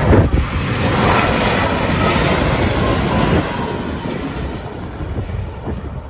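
Jet airliner on landing approach passing low overhead: a loud jet engine rush with a faint steady whine, fading away after about three and a half seconds. Wind buffets the microphone.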